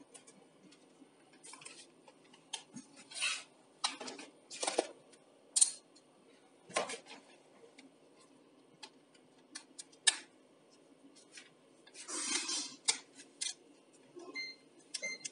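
Scattered light clicks, taps and clinks of hands handling multimeter probes and tools around lead-acid batteries, with a longer scraping rustle about twelve seconds in.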